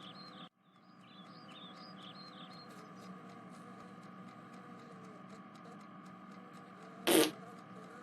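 A short, loud, airy fart about seven seconds in, lasting a fraction of a second, over a faint steady hum with birds chirping in the background.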